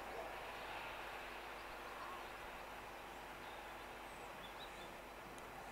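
Faint, steady rumble of two locomotives running light, Class 66 diesel 66103 and Class 90 electric 90019, as they move away along the track and fade slightly. A few faint bird chirps come about three and a half to four and a half seconds in.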